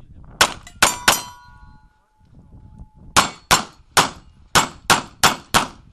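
Pistol shots in an action-shooting course of fire: three quick shots, then a pause while a struck steel target rings on, then seven more shots at about three a second.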